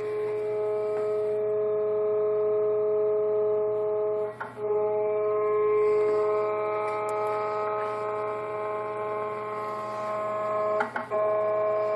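3D printer's stepper motors whining steadily with several fixed tones as they drive the print head, breaking off briefly twice, about four seconds in and near the end.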